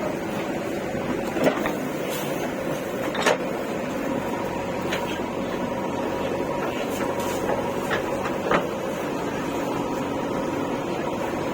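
A motor running steadily with a constant hum, and a few sharp knocks or clanks over it: once near the start, again a couple of seconds later, and once more near the end.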